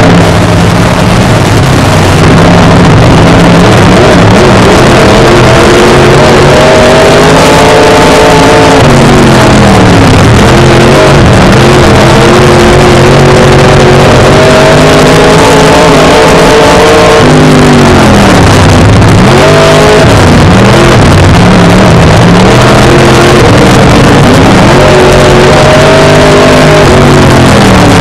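A dirt-track modified race car's V8 engine heard from inside the car at racing speed, very loud. Its revs climb and then drop away sharply three times as the driver eases off for the turns, over a constant rush of wind and tyre noise.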